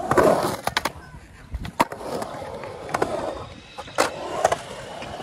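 Skateboard wheels rolling on a concrete bowl, the rolling noise swelling and fading in waves, with several sharp clacks of the board.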